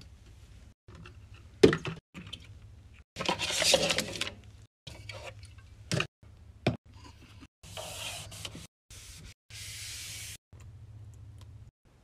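A quick run of restocking and cleaning sounds at a mini fridge: sharp knocks of items set down on the plastic shelves, a loud clatter of handled items about three seconds in, and two short stretches of steady hiss near the end.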